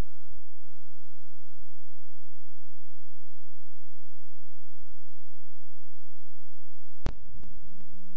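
A steady, unchanging low tone like a sine-wave hum. A sharp click comes about seven seconds in, after which the tone wavers unevenly.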